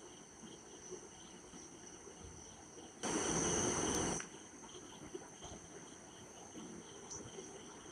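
A spatula stirring and frying onion-tomato masala in a metal kadai, faint, with a louder hissing scrape about three seconds in that lasts about a second. Crickets chirp steadily in the background.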